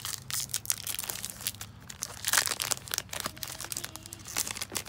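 Plastic wrapper of a Topps Series 2 baseball card pack crinkling and tearing as it is opened by hand, a quick run of crackles that is loudest about two seconds in.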